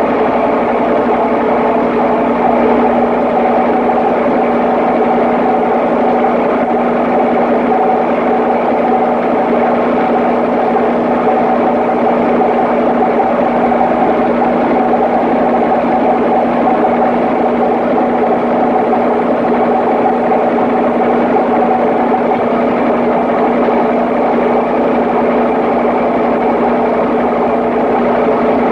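Papp noble-gas engine running steadily at constant speed on its certification test run, with a steady hum and no change in pitch.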